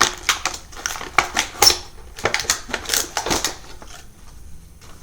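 Crackling and clicking of a plastic toy blister pack being handled and pulled open, a quick run of sharp crinkles that dies down about three and a half seconds in.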